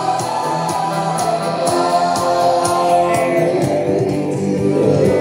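A rock song with singing and guitar and a steady beat, played from a vinyl record on a suitcase turntable through two paired W-KING Bluetooth speakers at about half volume.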